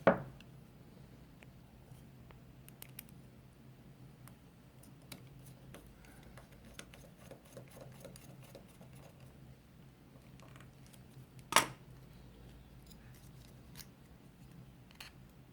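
Light scattered clicks and taps of a small plastic vape mod's casing and parts being handled during reassembly, with two sharper clicks, one at the start and one about eleven and a half seconds in, over a faint steady hum.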